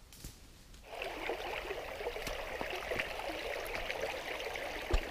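Shallow stream running over pebbles, a steady babbling that starts about a second in after a near-quiet moment. A single low thump near the end.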